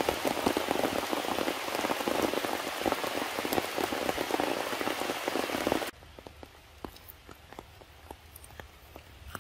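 Heavy rain pattering densely on leaves and ground. It cuts off suddenly about six seconds in, leaving a much quieter background with scattered faint ticks.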